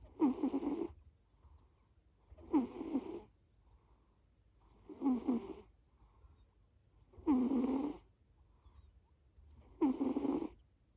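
A sleeping pet snoring in a steady rhythm: five snores, each about a second long, coming roughly every two and a half seconds.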